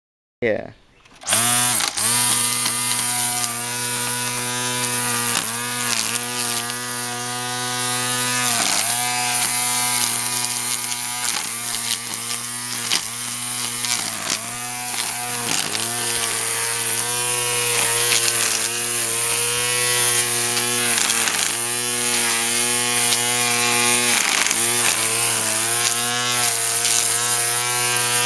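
Earthwise cordless electric lawn tool's motor starting about half a second in and then running at a steady high whine. The pitch dips briefly every second or two as the load comes and goes.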